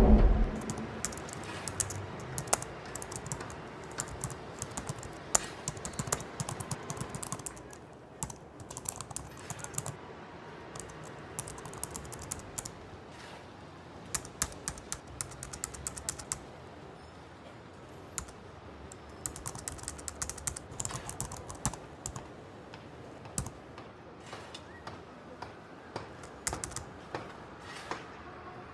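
Typing on a laptop keyboard: quick, irregular runs of key clicks with short pauses between them.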